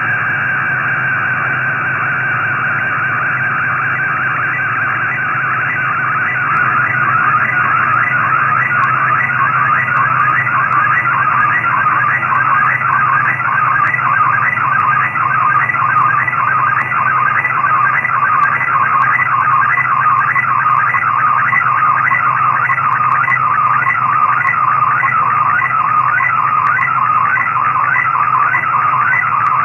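Unidentified digital data signal on 15770 kHz shortwave, heard through a receiver in upper sideband mode: a warbling, evenly repeating pattern of tones over radio hiss, growing stronger about six seconds in.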